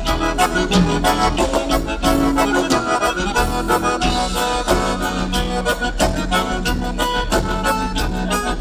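Gaúcho dance music played by a band with accordion lead over a steady rhythmic beat: an instrumental passage without singing.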